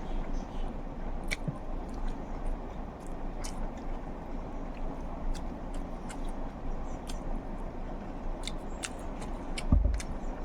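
Person eating close to the microphone: chewing, with small clicks and mouth sounds scattered throughout, over a steady low hum. A single dull thump stands out near the end.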